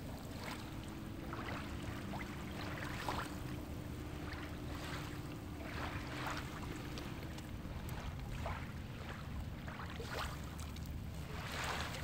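Shallow sea water lapping and splashing in small irregular splashes over a steady low rumble. A faint steady hum runs through the first seven seconds or so, then fades.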